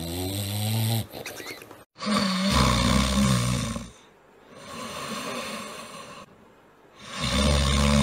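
Sleeping dogs snoring: a bulldog's snore in the first second, then, after a brief gap, a Shiba Inu snoring loudly, two long pitched snores about five seconds apart with a softer breath between.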